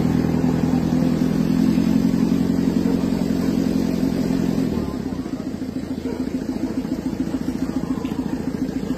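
A jeep's engine running steadily with a regular throb, then becoming noticeably quieter about five seconds in.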